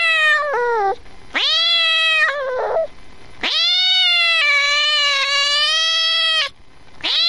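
A cat meowing: three drawn-out meows, the first ending about a second in, the second falling off near its end, and the last held for about three seconds. Another meow starts just at the end.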